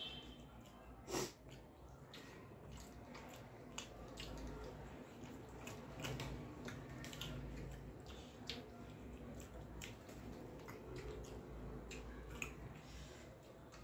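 Eating rice and chicken curry by hand: fingers squishing and mixing the rice on a metal plate, with chewing and small mouth clicks throughout. One louder click about a second in.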